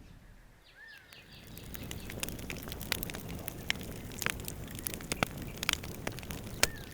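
A steady crackling noise full of sharp clicks, building up over the first couple of seconds, with a bird chirping twice: once about a second in and once near the end.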